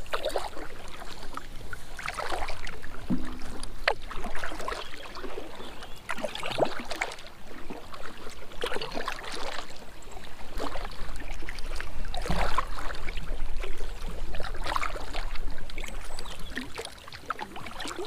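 Double-bladed paddle strokes dipping into and pulling through calm water beside an inflatable packraft, one splashy stroke about every two seconds.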